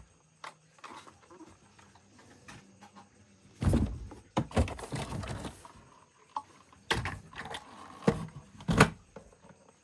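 Toy vehicles being handled: a handful of scattered knocks and clunks with quiet stretches between, the loudest about a third of the way in, about two-thirds of the way in and near the end.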